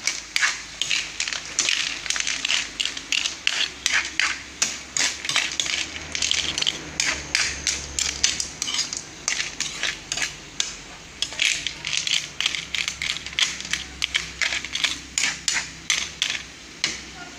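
A metal spatula scraping and knocking against a metal wok as papaya chunks and snails in their shells are stirred. The strokes come in a quick run of about two to three a second, with a short pause about ten seconds in.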